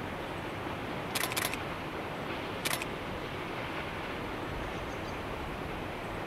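Camera shutter clicks: two in quick succession about a second in and one more near three seconds, over a steady rushing background noise.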